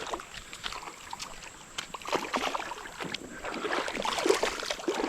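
Shallow creek water splashing and sloshing irregularly as a hooked smallmouth bass is fought and brought to the net. The splashing grows busier in the second half.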